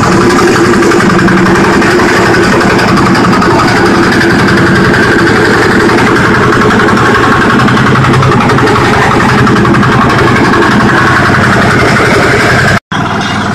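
Mini road roller's engine running steadily at a constant speed. It cuts out for an instant near the end, then carries on slightly quieter.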